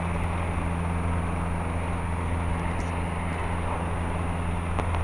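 Steady drone of a 1969 Cessna 150J's engine and propeller in cruise flight, heard inside the cabin, with a strong low hum and no change in pitch.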